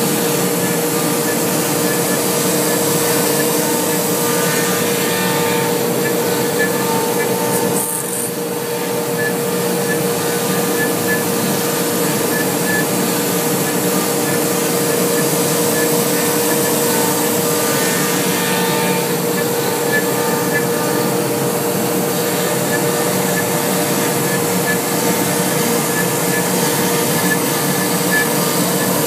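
MultiCam 3025R CNC router's 7.5 HP, 32,000 rpm spindle running while its bit carves high-density urethane sign foam at a 200 in/min feed. It makes steady, loud machine noise with a held tone, and the level dips briefly about eight seconds in.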